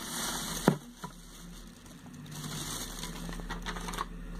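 Plastic wrap rustling and crinkling as a plastic-wrapped bucket is handled, with one sharp knock about a second in. A low steady hum sits underneath.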